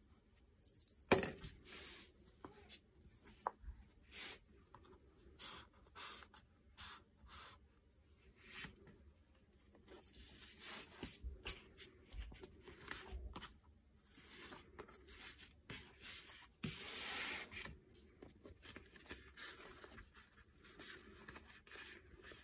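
Paper pages and tags of a handmade journal being turned and handled: a string of short papery rustles and scrapes, with one longer rustle about seventeen seconds in.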